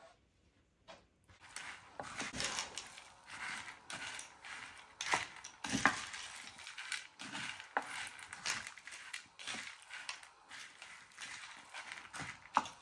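Wooden spatula stirring frozen mixed vegetables and chopped chicken in a glass baking dish: a continuous crunchy scraping and clattering of the frozen pieces against the glass, with sharp clicks and a few louder knocks. The stirring starts about a second in.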